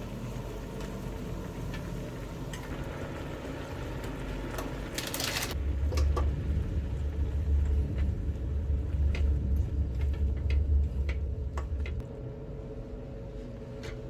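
A kitchen appliance motor running with a strong low hum. It switches on about five and a half seconds in, after a brief clatter, and cuts off about twelve seconds in. Light clicks and knocks from handling are heard around it.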